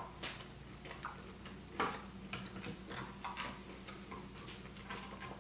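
Knife and fork clicking and tapping against a cutting board while cutting cooked steak: a scatter of faint, irregular clicks, one sharper about two seconds in.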